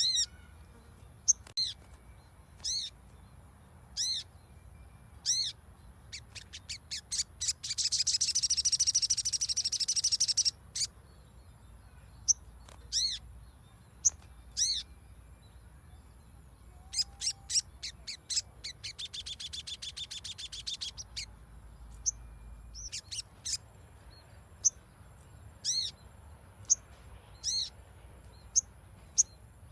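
Sogon (crimson sunbird) calling: sharp, high, short notes repeated about once every second or so. Twice the calls run into a long, fast, chattering trill lasting several seconds.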